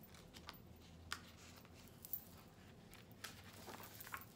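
Faint rustling and a few soft clicks of a picture book's paper pages being handled and turned.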